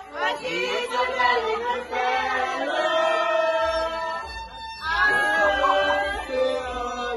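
Violin played live, mixed with a group of voices singing and calling out together.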